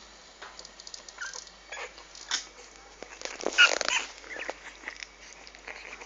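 English bulldog puppies making short whimpers and squeaks among scattered small clicks, the loudest a brief high-pitched yelp about three and a half seconds in.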